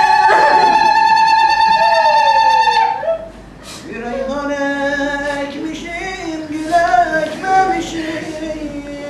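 A singing voice holds one long, high note for about three seconds, then, after a brief pause, goes on with a lower, wavering sung line.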